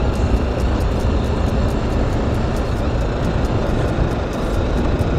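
BMW G310GS's single-cylinder engine running steadily as the bike rides along, under a heavy low rumble of wind and road noise.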